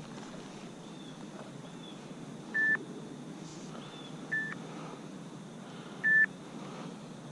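Three short, evenly pitched electronic beeps about a second and a half apart, over a steady low rush of wind and water.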